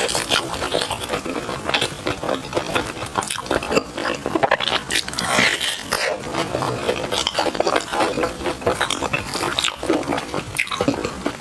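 Close-miked chewing and wet mouth smacking of sticky glutinous rice food, a constant run of small clicks and squelches.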